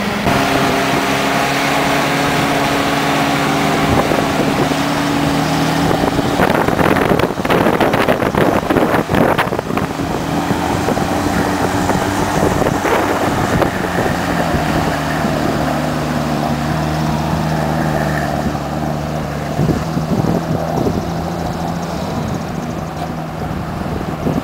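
WWII jeep's four-cylinder flathead engine running steadily while driving off-road, with wind on the microphone. There is a stretch of louder clatter about seven seconds in.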